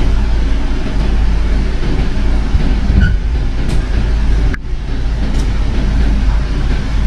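Steady rumble inside a commuter train carriage as the train rolls slowly along a station platform, with a brief drop in the noise about halfway through.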